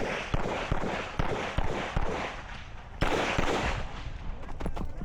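Smith & Wesson M&P 2.0 pistol firing a fast string of shots, about two to three a second, each echoing briefly. Fewer and quieter reports come near the end.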